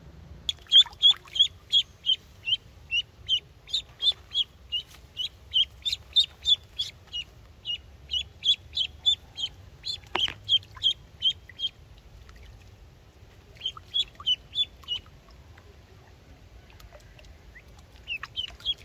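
Duckling peeping repeatedly, about three short high-pitched peeps a second, in runs that stop for a couple of seconds about twelve seconds in and again shortly after.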